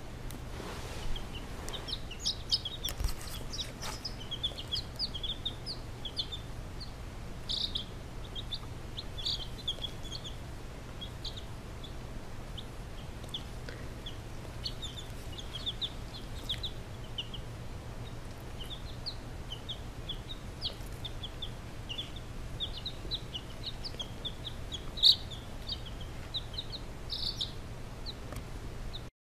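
Baby chicks peeping: many short, high cheeps in quick succession, over a steady low hum. One sharp click near the end.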